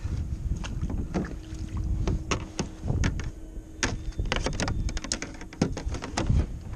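Sharp clicks and knocks as gear, a folding plastic fish ruler among it, is handled in a plastic fishing kayak. They are densest in the second half, over a steady low rumble of wind on the microphone.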